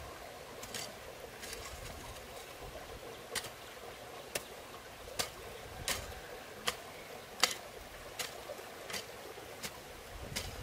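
A regular series of sharp knocks, about one every three-quarters of a second, the loudest about seven seconds in, over the steady rush of a flowing stream.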